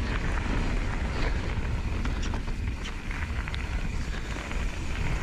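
Wind buffeting the microphone over the crunch and rattle of a mountain bike rolling fast down a loose gravel trail, with scattered sharp clicks from stones and the bike.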